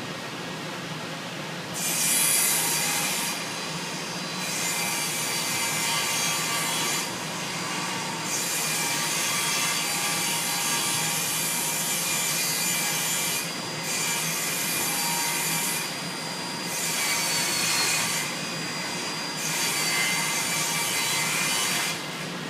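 Table saw ripping plywood: the blade cuts through the sheet from about two seconds in until near the end, with the hiss of the cut dropping away briefly several times, over the saw's steady running hum.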